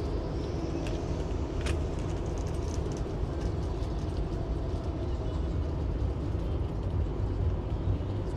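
Outdoor city ambience dominated by a steady low rumble of road traffic, with one sharp click about a second and a half in.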